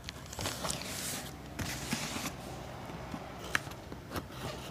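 A small pocket knife scraping and cutting through a cardboard box and its tape, a rough scratchy noise over the first two seconds or so, followed by a few light clicks and taps as the box is handled.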